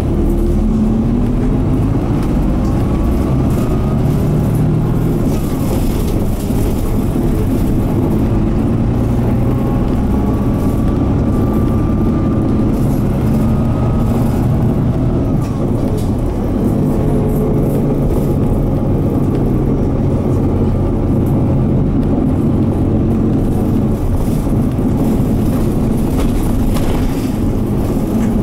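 Mitsubishi Fuso Aero Midi MK bus's 6M61 inline-six diesel running under load, heard from inside the cabin. The engine note rises and then drops back several times as the bus pulls through its five-speed manual gearbox with early upshifts, under steady road and tyre noise.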